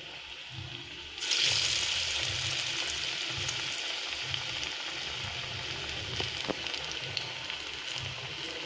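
Bottle-gourd vadai batter dropped into hot oil in a frying pan: the oil bursts into sizzling about a second in, then keeps frying with a steady hiss that slowly eases, with a few small pops.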